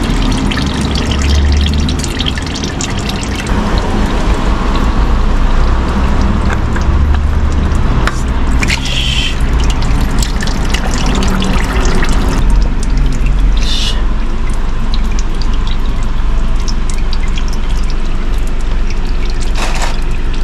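Old black engine oil trickling and dripping from the Nissan K13 March's oil filter mount and the removed filter into a drain pan below, a steady liquid pouring sound. Two short, sharper noises come about 9 and 14 seconds in.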